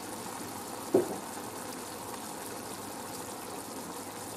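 Squid, pineapple and tomato stew simmering in a nonstick frying pan, a steady bubbling and hiss of the sauce. A brief short sound about a second in.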